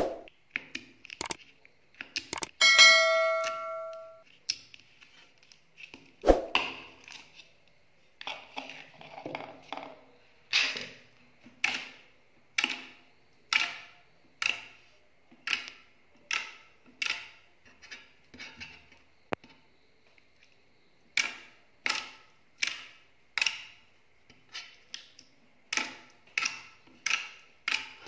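Clear slime being poked and pressed by fingers, making sharp clicks and pops about once a second. There is a short bell-like ring about three seconds in and a thump about six seconds in.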